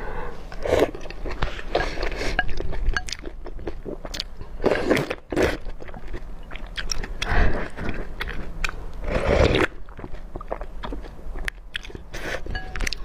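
Close-miked eating: biting and chewing with small wet clicks, broken by four or five short noisy slurps of noodle soup.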